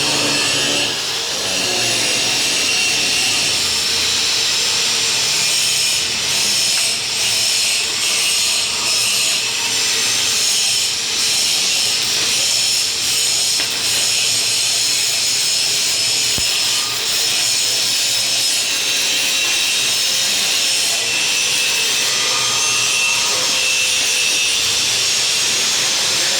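Electric welding arc giving a steady crackling sizzle, with a few brief dips.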